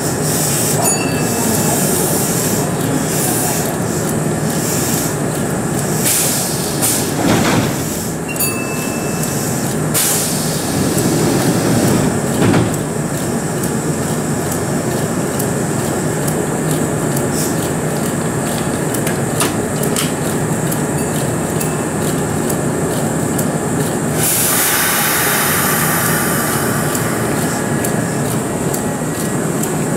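Kintetsu electric train standing at the platform, its onboard equipment running with a steady hum. About three-quarters of the way through, a hiss of compressed air lasts a few seconds.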